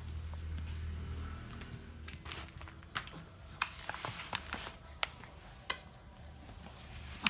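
Sharp clicks or taps, about six in all and spaced roughly half a second to a second apart, the last one near the end the loudest, over a low hum that fades out after the first second and a half.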